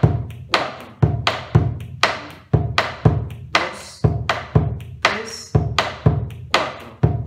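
Bombo legüero, the Argentine folk drum, struck with two wooden sticks in the steady 3/4 gato and chacarera rhythm, the basic pattern. Deep strokes on the hide head mix with sharper clacks on the wooden rim, several strokes a second.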